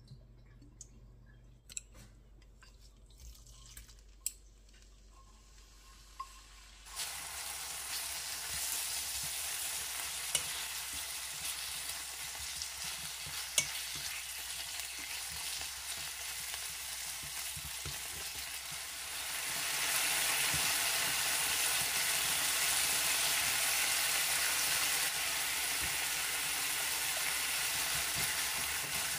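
Chicken breast pieces frying in oil in a pan, sizzling steadily while they are stirred with wooden chopsticks, with a few sharp clicks. The sizzle starts suddenly about seven seconds in, after some faint clicks, and grows louder about twenty seconds in.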